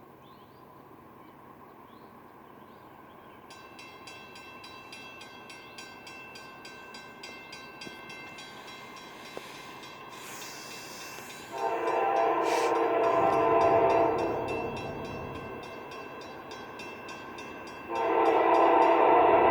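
Locomotive horn sounding two long blasts as a freight train approaches, over a slowly rising rumble. A bell rings at a fast, even rhythm from a few seconds in, typical of a grade-crossing bell.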